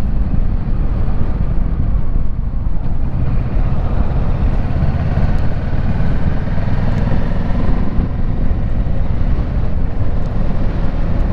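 Kawasaki Versys 650 parallel-twin motorcycle engine running steadily while riding, mixed with heavy wind rush over the helmet-mounted microphone.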